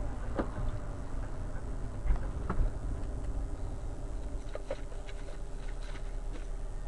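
Car interior noise of a Rover 45 driving slowly: a steady low engine and road rumble, with a few sharp clicks and knocks of cabin rattles in the first five seconds.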